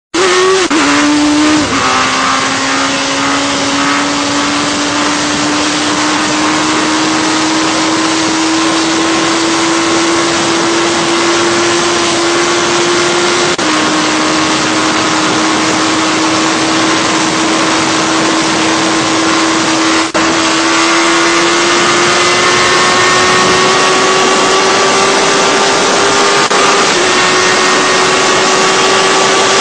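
Sport motorcycle engine pulling at very high speed, its note climbing slowly and dipping briefly at a few gear changes, under a loud rush of wind.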